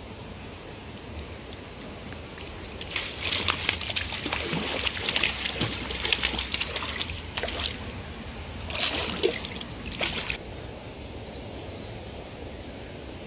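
A hooked brown trout splashing and thrashing at the water surface as it is brought in: a long burst of splashing starting about three seconds in, then a shorter one around nine seconds.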